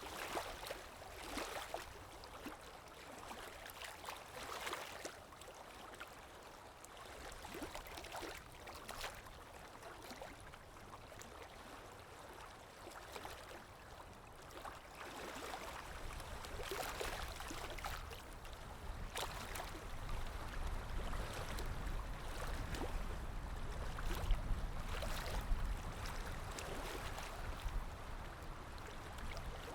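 Calm small waves lapping and splashing gently in irregular washes, with a low rumble building in the second half.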